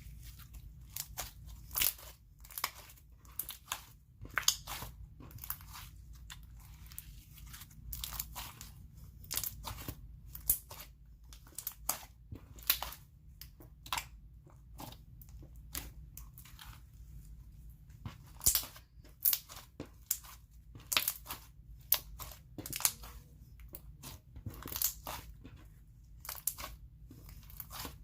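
Thick, slightly over-activated slime being squeezed and worked by hand, with many irregular sharp pops and clicks as air bubbles burst in it.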